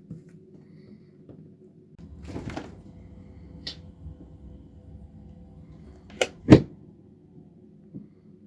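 Refrigerator door pulled open with a short noisy rush, a light click about a second later and a faint steady hum while it stands open, then shut with a sharp double thud, the loudest sound.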